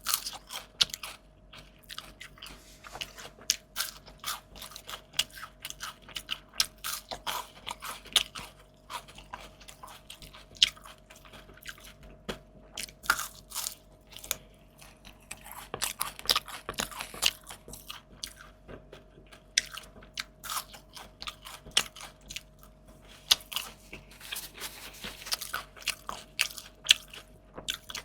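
Close-miked eating: a person biting into and chewing crunchy fried fish and raw vegetables, with irregular sharp crunches and a couple of longer, denser runs of crunching.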